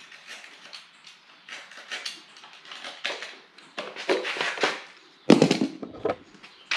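Hand work on a Toyota 1UZ-FE V8 while its timing belt is taken off: scattered clicks and light metallic rattles of tools and parts, with one heavy clunk about five seconds in.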